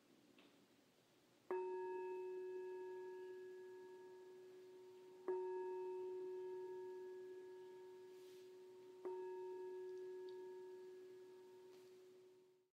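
Meditation bell struck three times, about four seconds apart, each strike ringing out with a clear tone and slowly fading; the last ring is cut off near the end.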